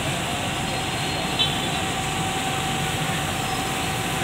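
Fire engines running steadily, a continuous engine noise with a faint, steady high whine over it.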